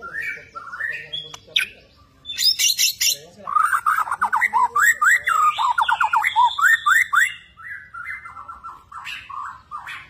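Bornean white-rumped shama (murai batu) singing in its cage: a harsh, scratchy burst about two and a half seconds in, then a fast run of rising whistled notes, about five a second, for some four seconds. Softer, scattered notes follow near the end.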